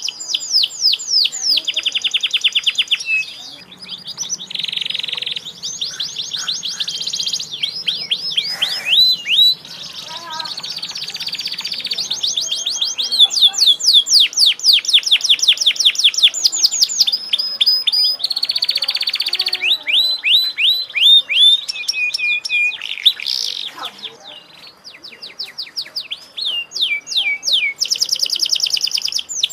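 Domestic canary singing a long, unbroken song of rapid trills and rolls. The repeated sweeping notes switch to a new phrase every second or two, as expected of a canary in full, vigorous song ('gacor').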